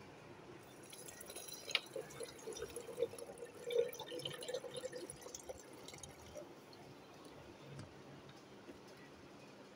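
Water poured into a large clear jar over a gravel bed, splashing and gurgling as the jar fills, then stopping about six seconds in.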